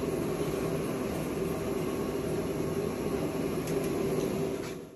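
Steady mechanical hum with a faint low drone, running evenly, then stopping abruptly near the end.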